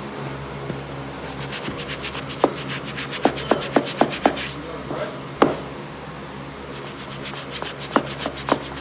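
Hand brush scrubbing wet saltillo terracotta tiles and grout coated with chemical stripper, to lift old sealer and whitewash. The strokes come fast and rhythmic, about four or five a second, pause briefly in the middle, and are punctuated by sharp knocks of the brush against the tile.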